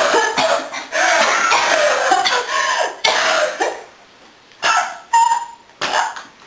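A woman in a coughing fit: a long run of hard coughs, then a few short bursts of coughing with pauses between them near the end.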